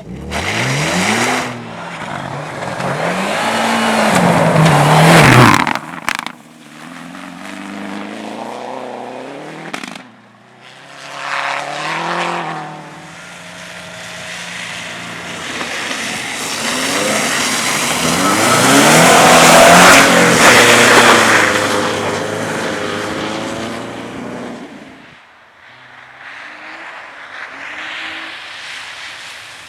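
Cars on a race circuit driving past one after another, engines revving up and down through the gears, several passes in a row with the loudest about two-thirds of the way through.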